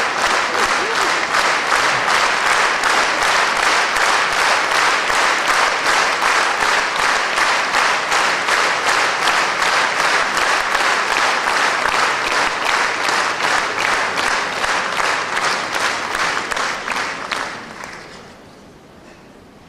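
Concert audience applauding, the clapping falling into a regular rhythm, then dying away about eighteen seconds in.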